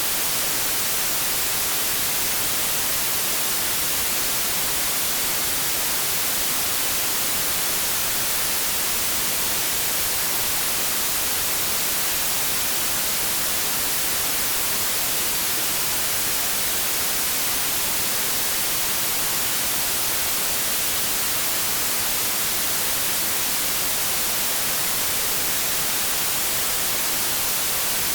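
Steady white noise static: an even, unchanging hiss, brightest in the high frequencies.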